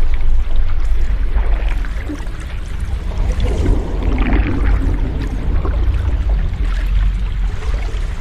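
Sea waves washing ashore: a steady noisy wash over a deep rumble, with one wave swelling up about halfway through.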